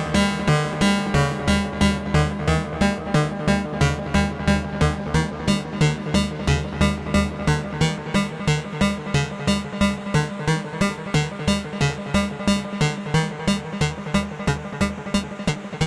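AE Modular synthesizer playing a sequenced electronic pattern: short pitched synth notes pulsing at about three a second over sustained low tones.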